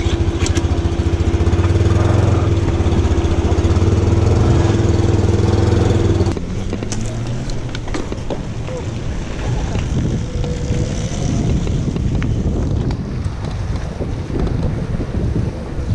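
A river ferry's engine running with a steady low drone, stopping abruptly about six seconds in. It is followed by wind on the microphone and bicycle tyres rolling on a dusty dirt road.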